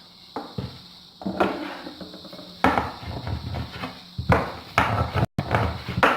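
Wooden rolling pin working dough on a table: a string of irregular knocks and thumps as the pin is set down, pressed and rolled.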